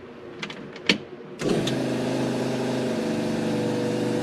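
A few sharp clicks, then about a second and a half in a steady machine hum starts abruptly and holds at one even pitch, likely a motor in the Firebird drag car coming on when its power is switched on to test the new USB socket.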